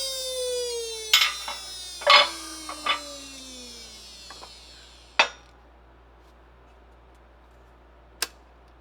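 A rubber prop hub is being forced through a 3D-printed plastic funnel in a hydraulic press under heavy pressure. A high squealing creak falls steadily in pitch as it fades, broken by sharp cracks about one, two and three seconds in and a louder snap about five seconds in, then one more crack near the end.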